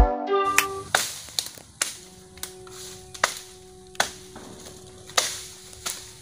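Intro music cuts off about half a second in. Then come sharp woody cracks and knocks at irregular intervals, about seven in all, from work among cut bamboo.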